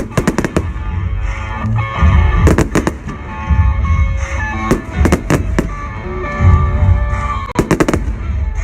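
Fireworks going off: clusters of sharp crackling bangs with deep thuds, about four bursts, over background music.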